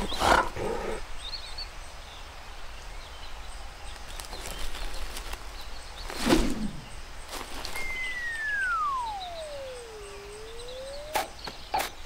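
Cartoon sound effects: short vocal noises from the bear character near the start and a sudden loud sound about six seconds in, then a single whistle that slides down in pitch for about two seconds and bends slightly up before stopping, followed by a few light clicks.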